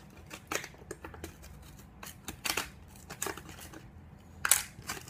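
Shoe glue's packaging being handled and opened by hand: irregular plastic crinkling and sharp clicks, with a louder snap about four and a half seconds in.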